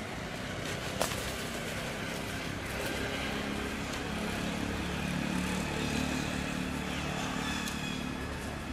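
A motor vehicle's engine running nearby, a low steady hum that grows louder around the middle and then eases off. There is one sharp click about a second in.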